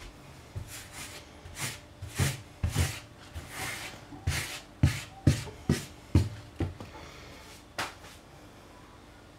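Fingers scraping and picking at melted plastic stuck to a hob: a run of short, sharp scratches at uneven spacing, loudest in the middle, with a last one near the end.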